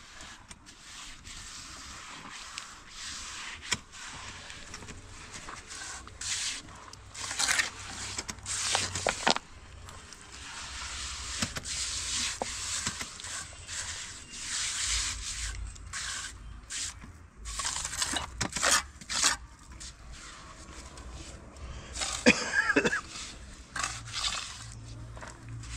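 Irregular scraping and rubbing, in strokes of varying length, with sharp clicks here and there and the loudest cluster a few seconds before the end.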